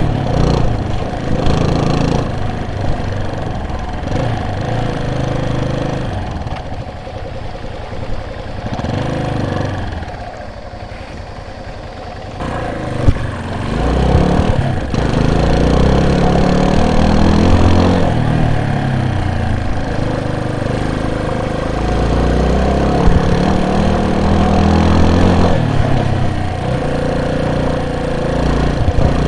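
A vehicle's engine running under way, its pitch rising and falling with the throttle. It eases off about ten seconds in and picks up again a few seconds later, with a single sharp knock about thirteen seconds in.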